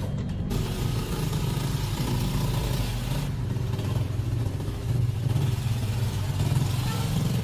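Motorcycle engine running steadily after its repair, a low even engine note with mechanical noise above it.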